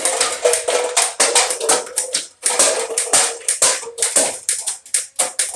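Clone Nerf Strife flywheel foam-dart blaster firing rapid shots, about three to four a second, over the steady hum of its spinning flywheel motors, with a short break a little past two seconds in.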